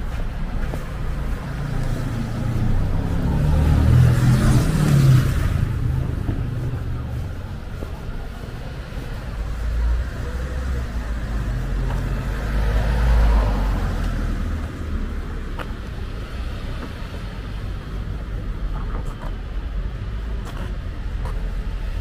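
Road traffic going by: one vehicle passes with a rising and fading tyre hiss about four seconds in, and a deeper, rumbling one passes around thirteen seconds in, over a steady low traffic rumble.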